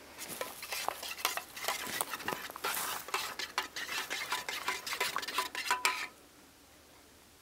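A spoon stirring and scraping in metal camp cookware: a quick, uneven run of clinks and scrapes with a faint metallic ring, stopping about six seconds in.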